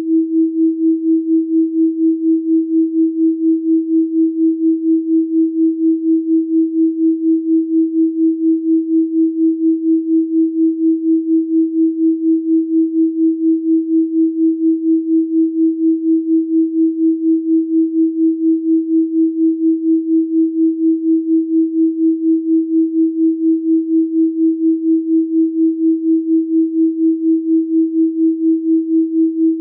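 Steady electronic pure sine tone at 324 Hz, one unbroken pitch with no harmonics, swelling and fading evenly several times a second.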